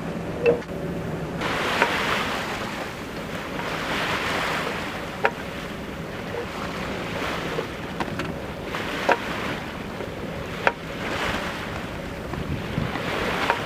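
Sea water rushing and splashing along a yacht's hull in repeated surges every few seconds, with wind on the microphone. A few sharp knocks sound through it.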